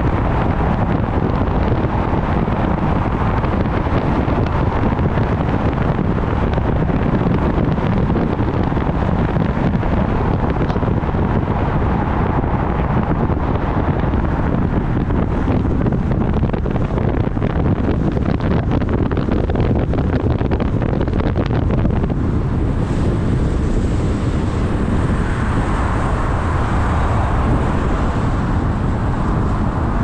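Car driving along at a steady speed: continuous road and tyre rumble, with wind blowing on the microphone.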